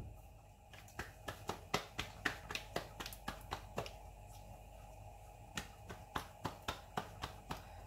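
Light sharp clicks and taps, about three a second, with a short gap a little past the middle, as rolled paratha dough is handled and lifted off the board.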